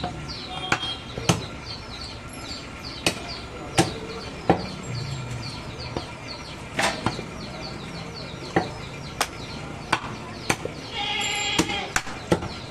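Butcher's cleaver chopping through a goat carcass on a wooden chopping block: sharp, irregular chops, about one a second.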